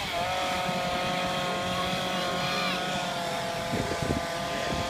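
Two-stroke chainsaw running at steady high revs as it carves wood, its pitch holding even, with a few faint knocks about four seconds in.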